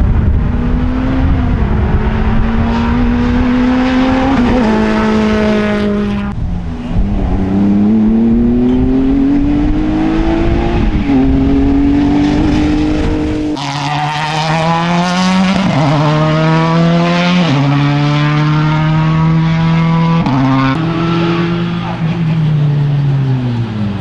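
Rally car engine accelerating hard through the gears, its pitch climbing and then dropping sharply at each upshift. About halfway through the sound changes abruptly to another stretch of a rally car at high revs, pitch stepping between gears and falling near the end as it slows.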